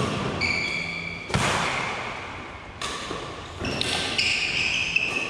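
Badminton rally: racket strings striking a shuttlecock about every second and a half, with short high squeaks of sneakers on the court floor.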